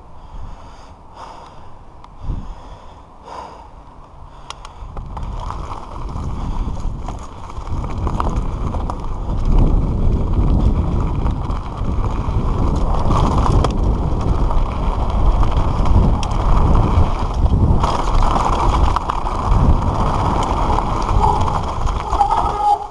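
Giant Reign mountain bike rolling fast down a loose, rocky dirt trail: a rough rumble and rattle of the tyres and bike over stones, mixed with wind on the microphone. It gets much louder from about five seconds in and stays loud until just before the end.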